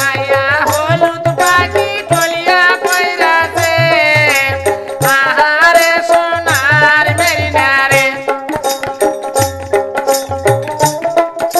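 Bengali folk dance music: a voice sings a bending, gliding melody over a steady low hand-drum beat, with sharp percussive clicks.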